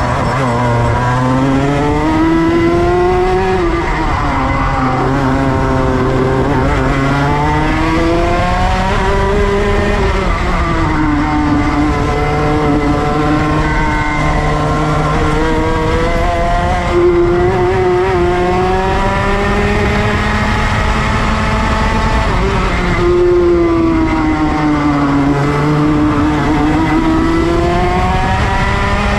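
Go-kart engine heard onboard while lapping a kart track. Its pitch climbs as the driver accelerates and drops back as he slows for corners, again and again through the lap.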